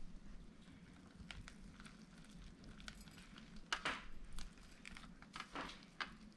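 Faint handling sounds of a softened rice paper wrapper being folded and rolled by hand around lettuce and shrimp on a metal plate: soft rustles with a few brief crackles and taps, the clearest a little before four seconds in and again near the end.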